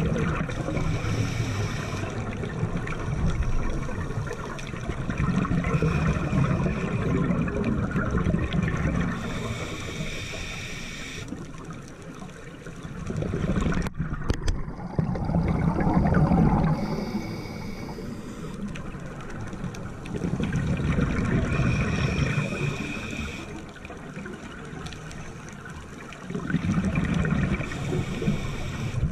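Scuba breathing heard underwater: bubbling, rumbling exhalations through a regulator every four to five seconds, with quieter gaps between breaths.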